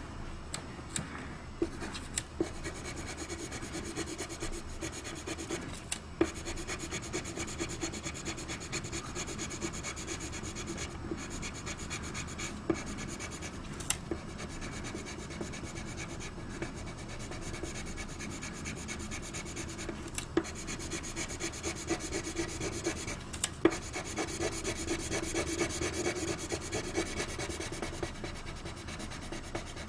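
Colored pencil shading on drawing paper: a steady, rapid scratching of quick back-and-forth strokes, with a few sharper clicks here and there.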